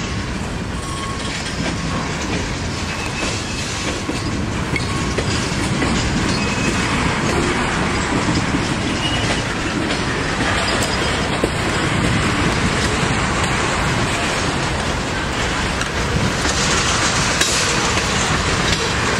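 Norfolk Southern freight train of tank cars rolling past: a steady noise of steel wheels on the rails.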